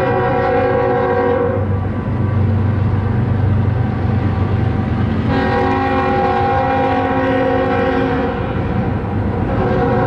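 BNSF freight train's diesel locomotive air horn sounding a chord for the grade crossing: one blast ending about a second and a half in, a longer blast from about five seconds to nine, and another starting just before the end. A steady low rumble runs beneath.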